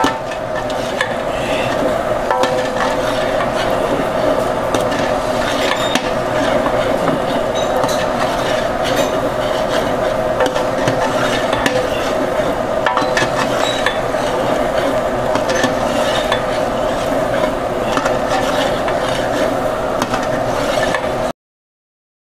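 Spoon stirring and scraping mutton with fried-onion masala as it cooks in a large pot, with frequent small clinks of metal on metal over a steady sizzle. The sound cuts off suddenly near the end.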